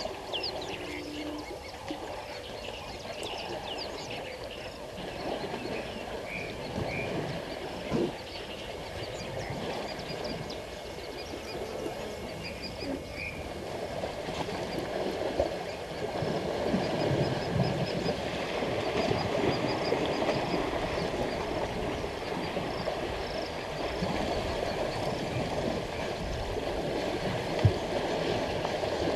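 Elephants wading and splashing in a waterhole: a steady churning wash of water that grows louder about halfway through, with two sudden sharp sounds.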